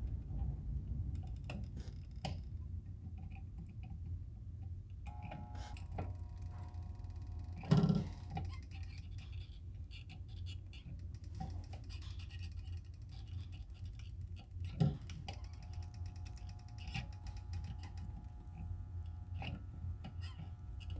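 Molten lead being poured from an electric bottom-pour lead pot into holes in a pine board: a low steady hum under scattered light clicks and knocks of the board and pour spout, the loudest near 8 seconds and again near 15 seconds.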